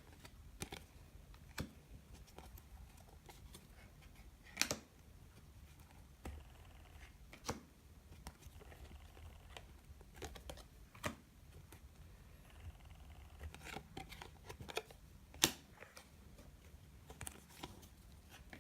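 Chromium trading cards being handled and flipped one at a time, giving faint scattered clicks and snaps, two of them sharper, as cards that stick together are pulled apart.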